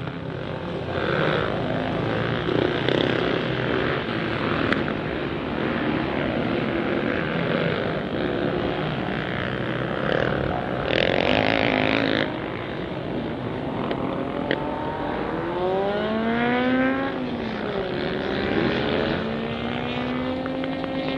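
Motocross motorcycle engines running around a dirt track, heard at a distance as a steady drone. In the last third one bike's engine revs up, climbing in pitch, drops back and climbs again.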